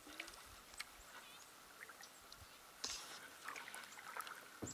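Faint canoe paddling on calm water: small dips and drips from the paddle, with two sharper splashes, one about three seconds in and one near the end.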